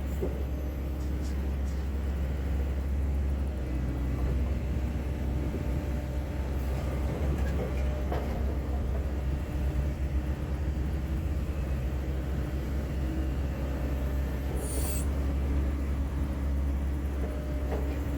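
Wacker Neuson 14504 hydraulic excavator's diesel engine running steadily, with a brief high hiss about fifteen seconds in.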